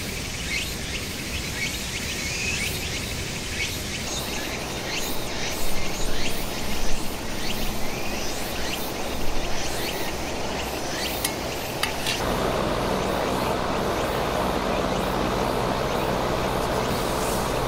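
Outdoor ambience with birds chirping over a steady rushing background noise. About twelve seconds in, the background changes to a louder, even rushing noise.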